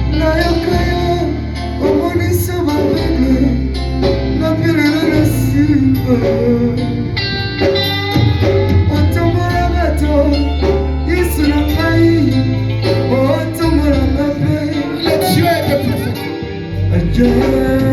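Church worship music: singing over held bass notes and guitar accompaniment.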